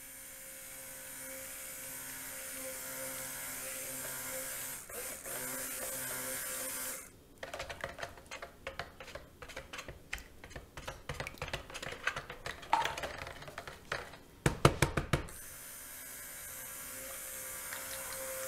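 Stick blender running steadily in a plastic bucket of soap batter, stopping about seven seconds in. A stretch of irregular clicks and knocks follows, louder just before the blender starts up again about fifteen seconds in.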